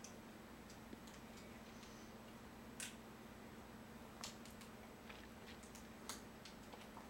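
Near silence: room tone with a faint steady low hum and a few soft, isolated clicks spaced a second or more apart.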